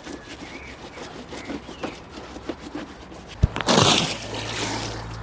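Cloth rag rubbing on a vehicle windshield, small scattered scrapes and squeaks. About three and a half seconds in there is a sharp thump followed by a louder rasping swipe, after which a steady low hum sets in.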